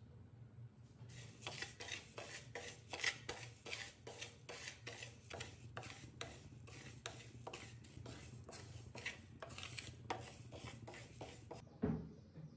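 Wooden stirring stick scraping and turning split moong dal across a dry clay pan in quick repeated strokes, several a second, as the dal is dry-roasted. Near the end comes a single thump.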